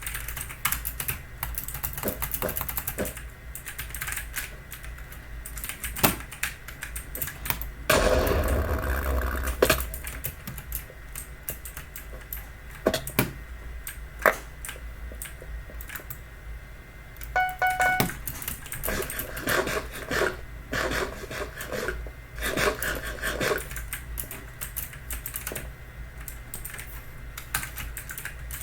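Typing on a Logitech mechanical keyboard with Logitech's clicky blue-style switches: a rapid, irregular patter of key clicks, busiest about eight seconds in. A short pitched beep sounds about two-thirds of the way through.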